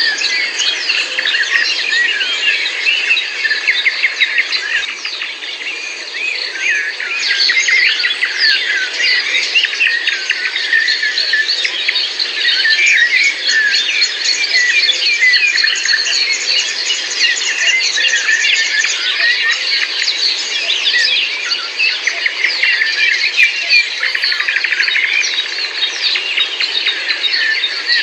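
Dense chorus of many songbirds singing and chirping at once, a continuous overlapping tangle of quick high chirps and trills.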